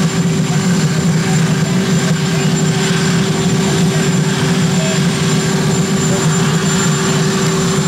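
Marine One, a Sikorsky VH-3D helicopter, running with its twin turboshaft engines turning. It gives a loud, even drone with a constant hum-like tone that does not rise or fall.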